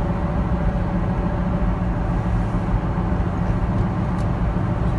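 Car cruising at highway speed, heard from inside the cabin: a steady low rumble of road and engine noise.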